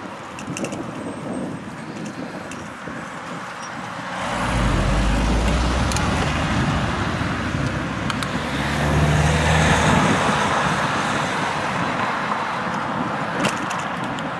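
Road traffic: motor vehicles passing close by, with engine rumble and tyre noise swelling about four seconds in and again around nine to ten seconds, then easing off.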